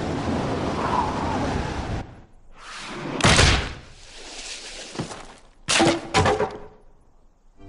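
Cartoon sound effects: a rushing whoosh for about two seconds, then a swelling rush that ends in a loud impact about three seconds in, and a quick cluster of sharp knocks near the end.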